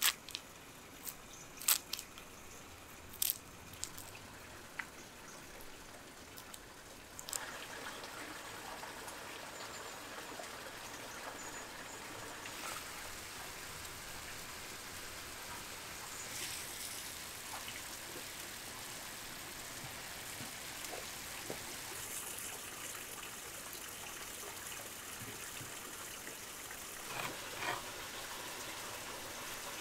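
Water trickling steadily, setting in about seven seconds in; before that, a few light, sharp clicks.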